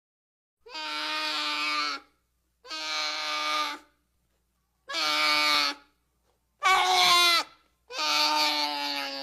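Baby monster roar sound effects: five short bleating, pitched cries, each about a second long, cut apart by dead silence. The fourth wavers and falls in pitch.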